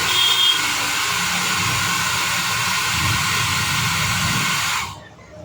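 Air blower running with a steady hiss, drying off the IPA used to clean the freshly soldered phone charging connector, then switched off suddenly near the end.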